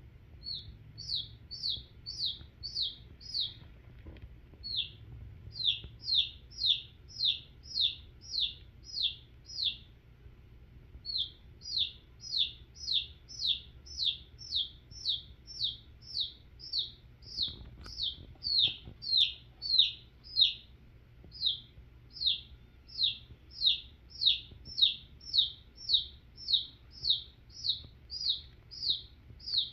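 Domestic chick peeping: high, downward-sliding peeps repeated about two a second in long runs with short breaks, the steady calling of a chick in distress.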